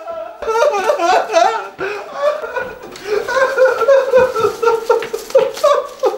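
A person's voice in high, wavering, drawn-out cries, broken into short choppy pulses for the first couple of seconds and held longer after that.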